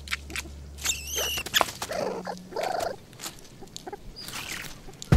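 Banded mongooses calling as they mill about: a high wavering chirp, then lower squealing grunts and another call near the end, among scattered clicks and rustles in the leaf litter.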